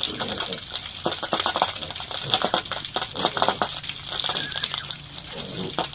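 Pigs eating: a dense run of quick, irregular clicks and crunches of chewing over a steady high hiss.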